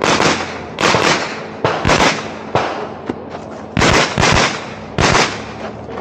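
A rapid series of gunshots in uneven groups, about ten in all, each cracking out and echoing briefly.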